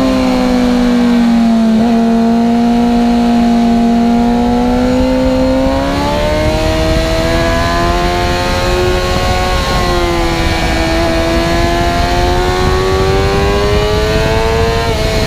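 Suzuki GSX-R 750 inline-four engine at speed on track, its pitch holding, jumping up about six seconds in, climbing, dropping sharply with a gear change about ten seconds in, then climbing steadily again under acceleration.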